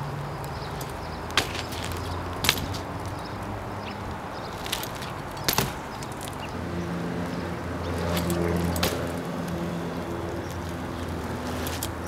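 A BMX bike being ridden and manoeuvred on asphalt: a few sharp clicks and knocks from the bike's tyres, pegs and parts, over a steady low hum that thickens with held low tones and swells a little in the second half.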